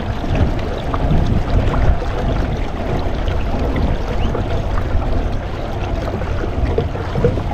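Water swishing and splashing along the hull of a kayak under way, with wind rumbling on the microphone.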